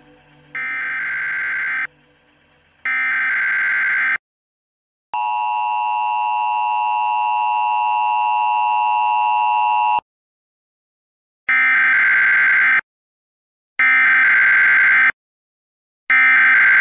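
Television emergency broadcast alert tones: two harsh, buzzer-like beeps of about a second each, then one long, lower steady tone lasting about five seconds, then three more beeps, the last starting near the end. They are the attention signal of an emergency broadcast, sounded ahead of a nuclear strike warning.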